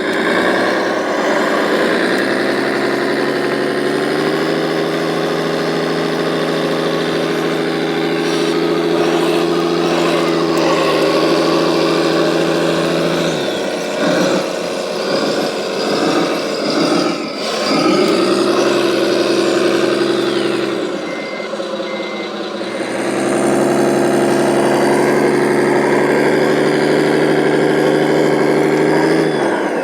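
Radio-controlled model truck running, its engine sound steady with several rises and falls in pitch as it speeds up and slows down. Two short beeps come about two-thirds of the way through.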